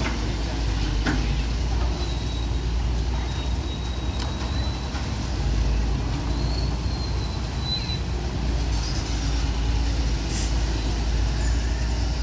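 CAT 320D excavator's six-cylinder diesel engine running steadily under hydraulic load as the long arm digs in the canal, with a couple of knocks about a second in.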